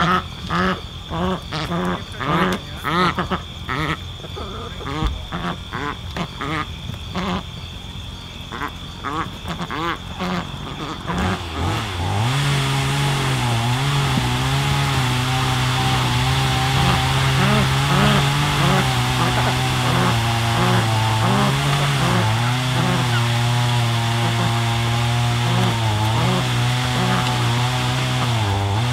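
A duck quacking in quick repeated calls, a few each second, over a steady high whine. About halfway through, a small petrol engine comes in and runs steadily, louder than the quacking, its pitch dipping briefly now and then.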